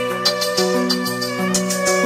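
Background music with a steady beat, a bass line that steps from note to note, and held melody notes; no singing here.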